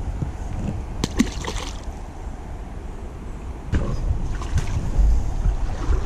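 Shallow river water splashing and sloshing as a small Coosa bass is let go back into the water, with a sharp splash about a second in, over a steady low rumble on the microphone.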